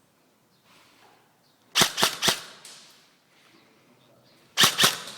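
Airsoft gun firing single shots, each a sharp pop: three quick shots about two seconds in, then two more near the end.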